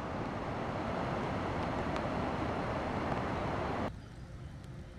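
Steady rush of running water outdoors, which cuts suddenly to a much quieter hiss about four seconds in.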